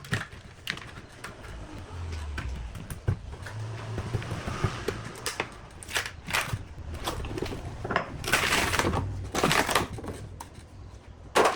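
Hand-work handling sounds: scattered sharp clicks and knocks, with two longer scraping or rubbing noises about eight and nine and a half seconds in and a loud click near the end, over a low hum.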